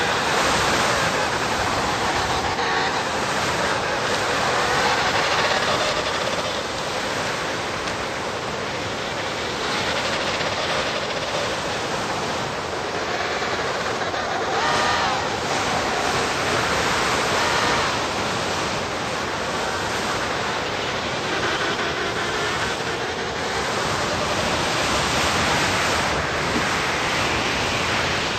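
Blizzard wind blowing hard over the ice: a dense, steady rushing noise that swells and eases a little.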